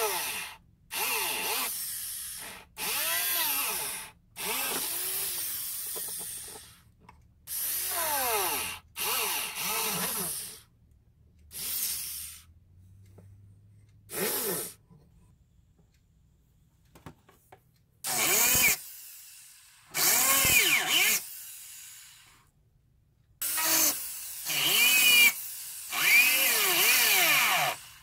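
Jeweller's rotary handpiece run in about a dozen short bursts of a second or two, its whine rising and falling in pitch as the speed comes up and drops off each time. It is drilling, then burring, a small hole through a forged silver spoon bowl.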